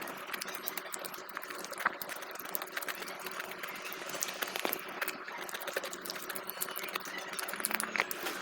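A person eating close to the microphone: a busy run of small chewing clicks and wet mouth smacks.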